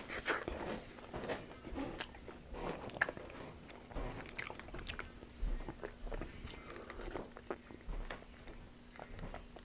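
Close-miked chewing of cheese pizza: wet lip smacks and sharp mouth clicks, scattered and irregular, with a drink from a glass near the end.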